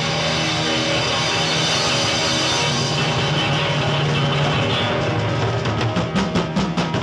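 Rock music led by electric guitar, with sustained chords. Near the end comes a run of quick, evenly spaced hits, about six a second.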